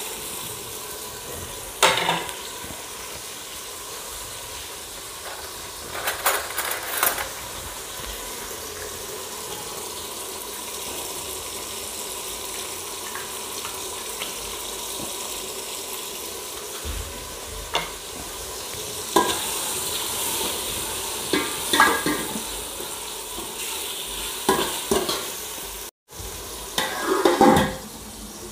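Onion and tomato frying in oil in an aluminium pot, a steady sizzle, with a metal ladle now and then clanking and scraping against the pot as it is stirred. Near the end the aluminium lid is set on the pot with a brief clatter.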